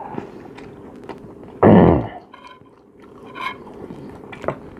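A man chewing a mouthful of food close to the microphone, with small wet mouth clicks and smacks. About two seconds in there is a short loud vocal sound.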